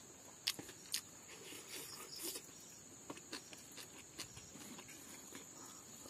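Close-up eating sounds: soft chewing and wet mouth clicks as silkworm pupae and rice are eaten by hand, with a few sharp clicks scattered through.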